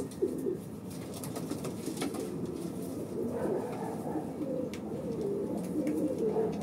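Racing pigeons cooing in a loft, several birds overlapping in a continuous low warble, with a few light clicks.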